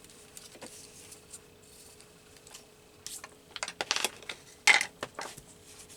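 A run of small sharp clicks and taps from handling an ink pad and paper at a craft table, starting about halfway through, with one louder click near the end; a faint steady hum underneath.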